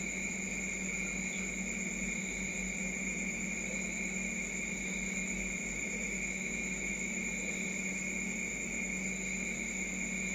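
Steady chorus of night insects: several unbroken high-pitched tones over a low hum, with no neck crack heard.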